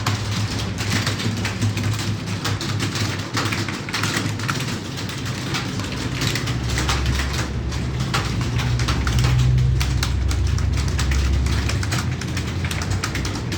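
Computer keyboard being typed on quickly and continuously, a dense irregular run of key clicks, over a low steady hum that swells in the middle.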